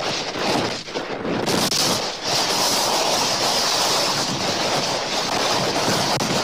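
Strong tropical-storm wind buffeting the nest camera's microphone as a loud rushing roar. It comes in uneven gusts at first, then holds steady and strong from about two seconds in.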